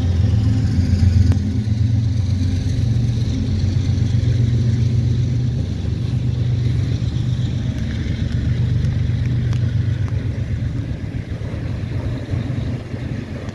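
Diesel locomotive engines of a BNSF freight train running: a steady low rumble with a few held low tones, easing slowly toward the end.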